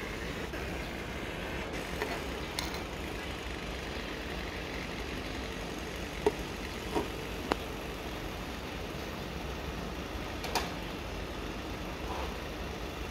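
Steady mechanical hum of a 100 W dynamic laser marking machine at work engraving plywood, with several sharp clicks scattered through it.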